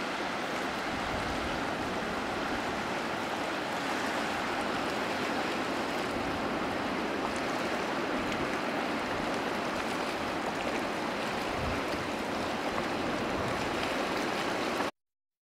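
Sea washing over a rocky shore with surf breaking beyond: a steady rush of water that cuts off suddenly near the end.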